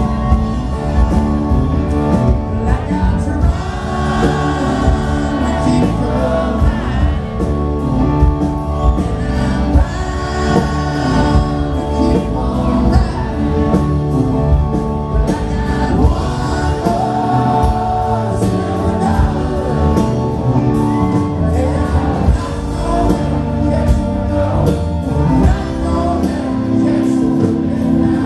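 Live southern rock band playing loud through a theatre PA, with distorted electric guitars and a drum kit, and a male lead singer singing over them.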